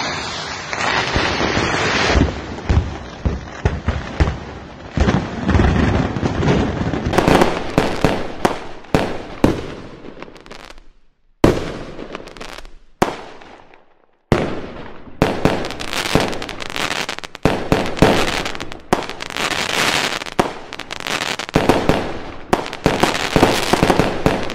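Fireworks going off: a dense run of bangs and crackling, then a lull of about three seconds with a couple of single sharp bangs, then dense crackling bursts again.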